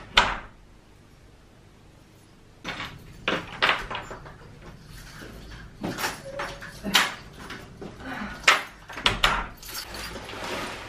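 A door being handled with keys: a sharp click at the start, then after a short pause a run of clacks, knocks and jingles.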